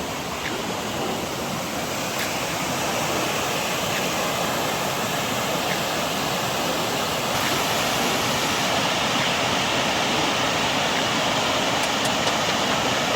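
Steady rush of a small waterfall cascading over rocks, growing gradually louder.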